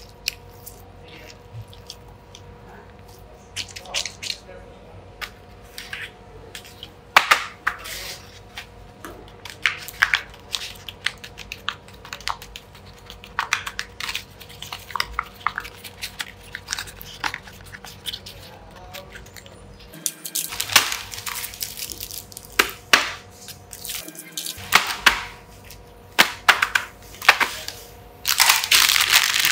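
Fidget toys being handled on a tabletop: a scattered run of small clicks, taps and crackles, with a denser, louder stretch of crinkling near the end.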